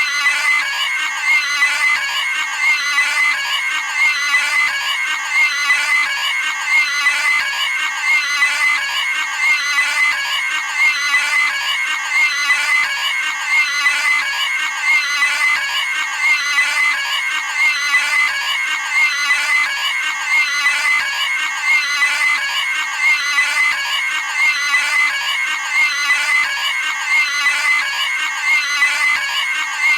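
Cartoon pig screaming sound effect: a shrill, high-pitched squeal repeated over and over in an even loop, more than once a second.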